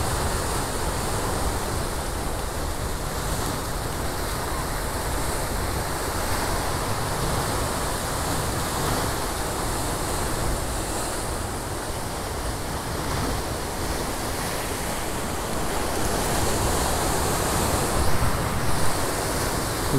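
Ocean surf breaking and washing over the rocks below: a steady, unbroken rush of water, with a couple of short louder bumps near the end.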